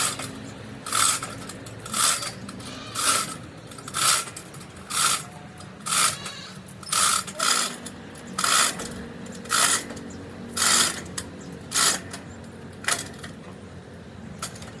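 A hand tool working metal in steady, even scraping strokes, about one a second, over a faint low hum.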